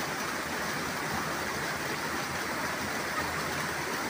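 Steady rush of fast-flowing river water at a waterfall, an even roar with no breaks.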